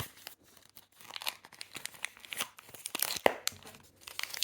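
Plastic packaging being torn open and crinkled by hand, a dense crackling with a sharp snap about three seconds in.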